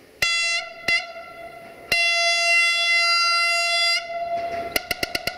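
Siemens Desiro VT642 diesel multiple unit's horn sounding: two short blasts, a long blast of about two seconds, then a rapid stutter of short pulses, about seven or eight a second, near the end: the 'machine gun' horn.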